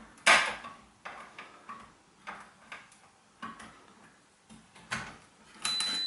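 Small sharp clicks and taps as the shower's microswitches are handled and probed with multimeter leads. Near the end a multimeter's continuity beep starts, a steady high tone, showing the switch contacts are closed and the switch is fine.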